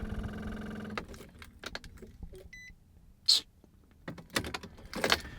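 Car keys jangling with scattered clicks and rattles inside the car, a steady electrical hum cutting off about a second in, and a short electronic beep about two and a half seconds in.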